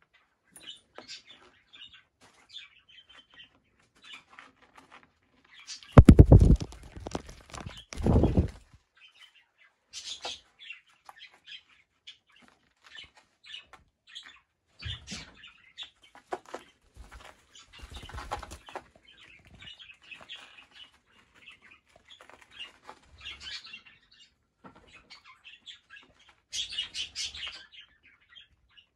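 Young cockatiels flapping their wings, loudest in two bouts about six and eight seconds in and once more near the middle, with short chirps and light rustling in between.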